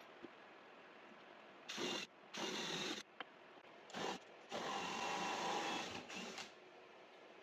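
Drill turning a 1-inch hole saw, cutting curved notches into the ends of small wooden hooks in a jig. It runs in short bursts, two brief runs then a longer one of about two seconds.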